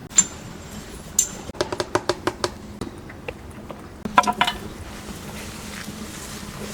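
Light clicks and taps of small hard objects being handled, with two short ringing clinks near the start, a quick run of about eight even clicks, and a tight cluster of clatter past the middle.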